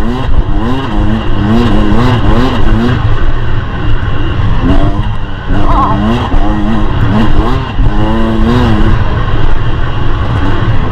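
The two-stroke single-cylinder engine of a 2023 Beta 300 RR Race Edition dirt bike being ridden hard, its pitch rising and falling again and again as the throttle is worked. The engine eases off briefly about five seconds in, then picks up again.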